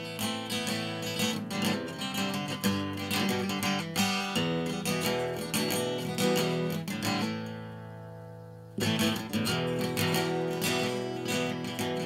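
Background music of acoustic guitar, strummed and picked. Past the middle, one chord is left ringing and fading for about a second and a half before the playing resumes.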